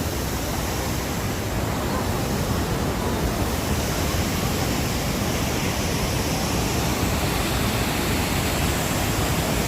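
Steady rush of Iguaçu Falls' water pouring over the cliffs, an even noise with no breaks.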